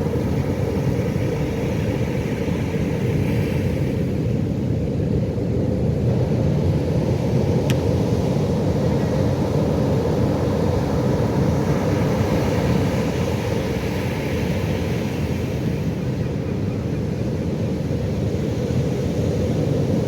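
Pacific Ocean surf: a steady, deep rumble of waves with the wash of breaking water swelling twice.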